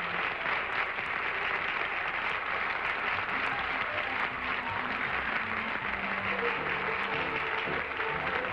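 Studio audience applauding steadily, with music coming up faintly beneath the clapping about six seconds in.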